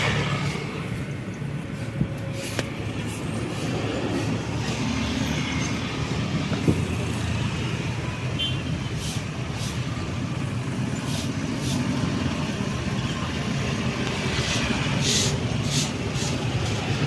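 Road traffic: a steady rumble of car and truck engines and tyres going by, with a couple of sharp clicks and a run of short ticks near the end.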